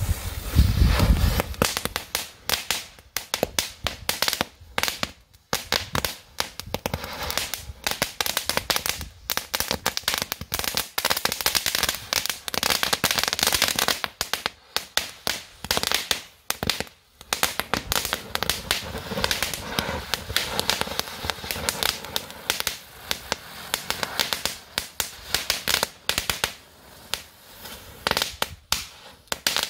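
Small Cat.1 crackling fireworks strung together as a 'Magic Whip' going off one after another, a dense run of sharp crackles and pops that dips briefly about 5 and 17 seconds in.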